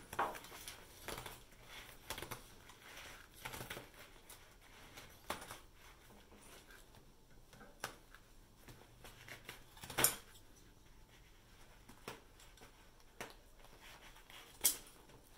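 Scissors snipping and scraping through the pleated filter media of a 3M Filtrete 1900 air filter along the edge of its frame, in a run of quiet, irregular cuts. A louder snip comes about ten seconds in and another near the end.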